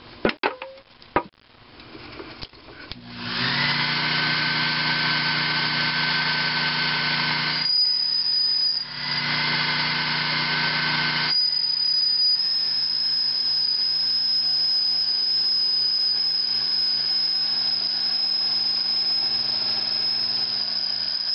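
Sherline mini lathe running and taking a light cut in an aluminum workpiece, a steady machine sound with a high whine. It starts about three seconds in after a few handling clicks and eases briefly about eight seconds in.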